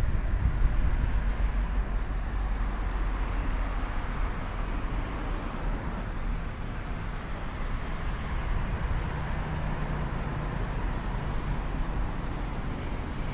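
Street traffic noise: a steady rumble of vehicles going by, a little louder in the first second or two.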